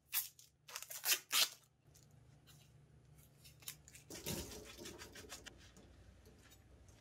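Red protective tape and plastic film being peeled and torn off a kitchen knife's handle: four short ripping sounds in the first second and a half, then softer rustling and rubbing about four seconds in.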